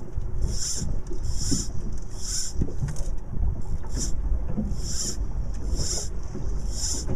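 Wind buffeting the microphone with a steady low rumble. About once a second comes a short rasping swish as fly line is stripped in by hand to work a jig.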